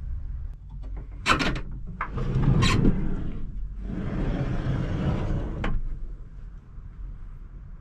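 The hinged door of a panel-van camper body is unlatched with clicks and pushed open with knocks and clunks. A couple of seconds of rustling noise follow and end in a sharp click about two-thirds of the way in.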